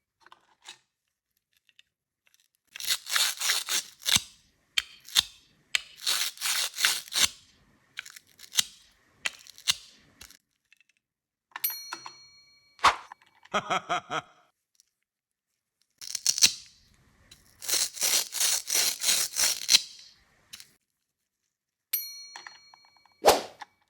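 Several bursts of rapid crackling clicks, each lasting a second or two, from toys or objects being handled. Two ringing dings are heard, each followed shortly by a sharp knock.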